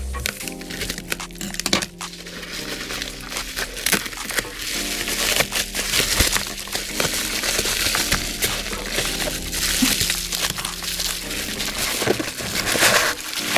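Bubble wrap and plastic packaging being crinkled and pulled off a parcel box, with many small crackles and rustles, over background music with held notes.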